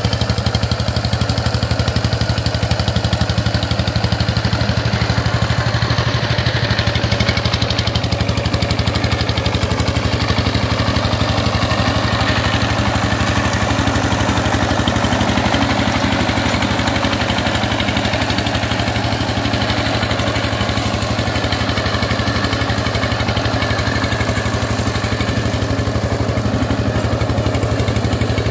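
Changchai single-cylinder diesel engine of a walk-behind power tiller running steadily while the tiller works, a fast, even chugging.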